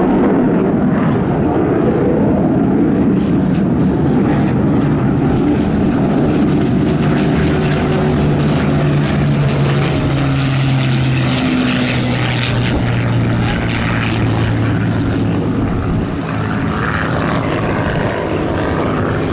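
Supermarine Spitfire's V12 piston engine and propeller running loudly as it flies a display pass. The engine note drops in pitch about halfway through as it passes by.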